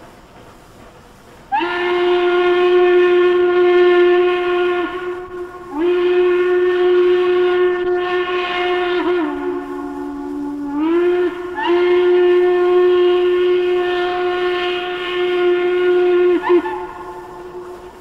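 Norfolk & Western steam locomotive whistle blowing one long blast, then after a brief break a second, longer blast. Partway through the second blast the pitch sags to a lower note for about a second and a half, then climbs back before the whistle cuts off near the end.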